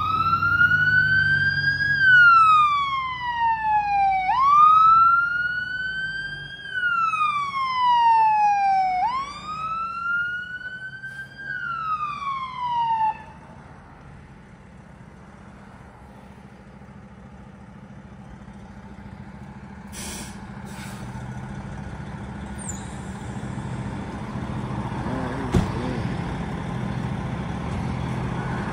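Fire engine siren wailing, rising and falling about every four and a half seconds for three cycles, then cutting off about 13 seconds in. After that the fire engine's engine runs steadily with a low rumble that slowly grows louder as the truck pulls up and stops.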